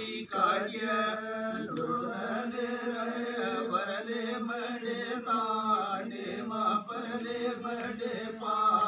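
Male voices chanting a Banjara ardas, a devotional prayer to Sevalal, in a drawn-out melody over a steady held tone.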